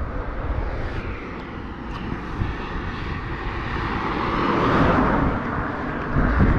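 A car passing along the highway: its tyre and engine noise builds to its loudest about five seconds in.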